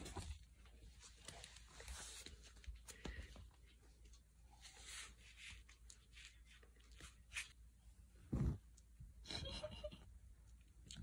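Faint rustling of a woven blanket and soft handling noises, with a dull thump about eight seconds in.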